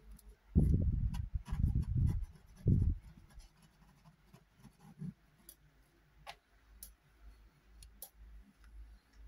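Palette knife scraping stray modelling paste off a wooden box lid: several dull rubbing strokes in the first three seconds and one more around five seconds in. A few faint light ticks and taps follow.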